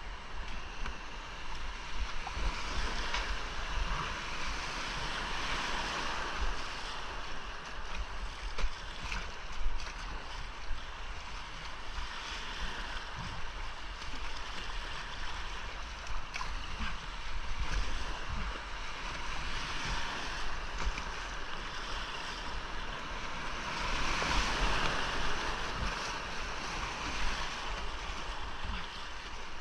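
Rushing whitewater of a creek rapid heard from inside a kayak run. The water noise swells louder twice, a few seconds in and again near the end. A low wind rumble buffets the camera microphone underneath.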